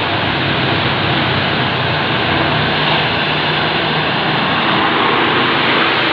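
Engine and road noise of a medium-size bus driving up past the roadside, steady and loud, a little louder near the end.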